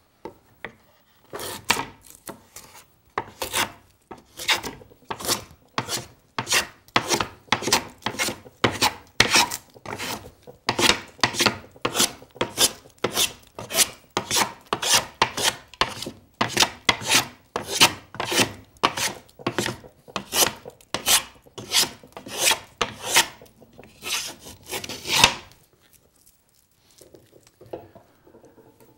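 Lie-Nielsen No. 40½ scrub plane, its curved iron shaving a wooden strip in quick repeated strokes, a bit under two a second, each a short rasping cut. The strokes start about a second in and stop about three seconds before the end.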